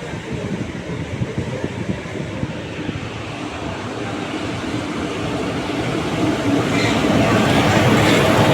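A train moving on the station track, a dense rumble that grows steadily louder over the last few seconds as it comes closer.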